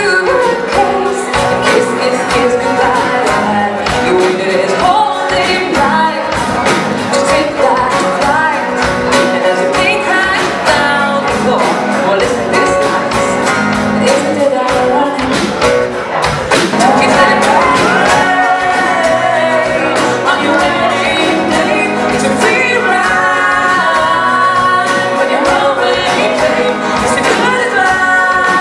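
Two women singing with a live band of acoustic guitar, drums and keyboard.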